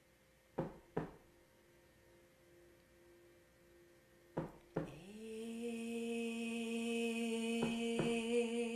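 A woman's voice humming one steady, sustained tone as the heart chakra's resonant sound, beginning about five seconds in. Before it come two pairs of short sharp clicks, one pair near the start and one just before the hum.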